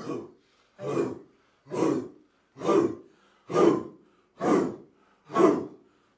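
A small group of voices shouting together in unison, one short shout a little under every second, seven times in a steady rhythm, as a chanted count-in to a song.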